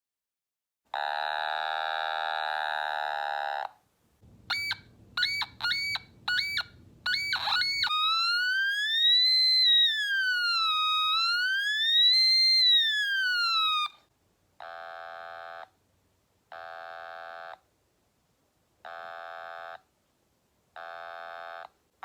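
Otamatone imitating sound effects: a held buzzy note about a second in, then a run of quick upward-swooping notes over a low rumble, then a siren-like wail rising and falling twice, and finally four short, evenly spaced beeps.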